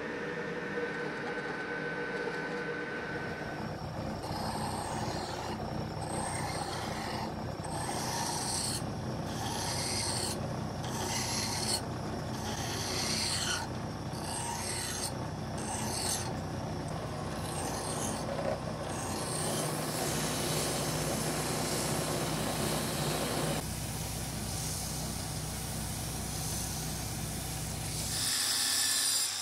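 Metal lathe running with a steady hum as a metal pestle is shaped. The cutting tool works first, then a hand file scrapes against the spinning workpiece in strokes about once a second. In the last part the strokes give way to a smoother, steady rubbing as the turned surface is finished by hand.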